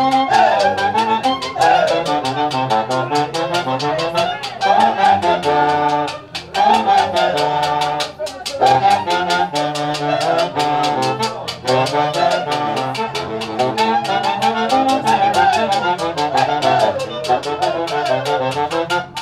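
A live brass band plays a lively festival dance tune. Trumpet-led melody lines sit over a fast, steady percussion beat, with two brief breaks between phrases.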